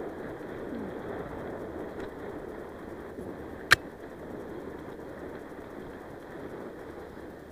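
Mountain bike riding fast over a dirt singletrack: a steady rumble of tyres on dirt and wind rush, with one sharp click about halfway through.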